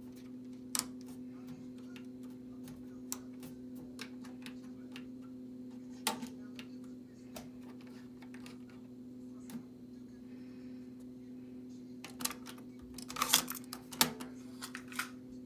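Sharp mechanical clicks from the controls of a Toshiba PC-G6R cassette deck being pressed by hand, scattered a few seconds apart, then a quick cluster of louder clacks near the end as the cassette door is handled. A steady low hum runs underneath.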